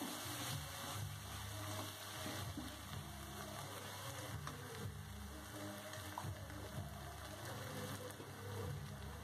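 Sliced shallots and green chillies frying in oil in an aluminium kadai: a steady sizzle with the scrape of a steel ladle stirring against the pan, over faint background music.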